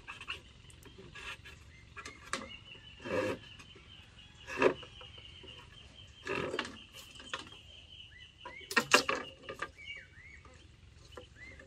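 Irregular clicks, knocks and rustles of bamboo sticks being handled and fitted together to build a fish-cover trap, with a few louder clatters. A steady high whine runs underneath, and a few short chirps come in the second half.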